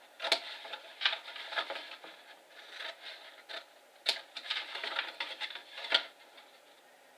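Scissors cutting through cardstock: a series of crisp snips with papery rustling between them, stopping about six seconds in.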